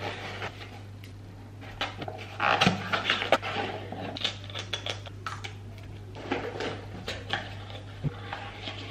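Handling noise from unpacking skincare products: cardboard boxes rustling and scraping, a glass pump bottle slid out of its box, and a canvas tote bag being rummaged, in irregular short rustles and taps.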